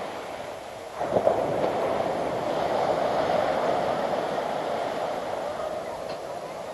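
Steady rushing noise of surf on the beach, swelling suddenly about a second in.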